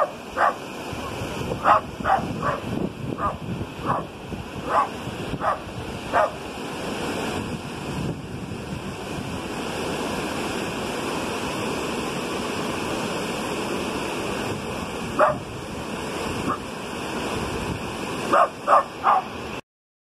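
Small mountain waterfall rushing steadily over rocks, with a West Highland White Terrier barking over it: about ten short barks in the first six seconds, a lone bark or two around the middle, and a quick run of four near the end.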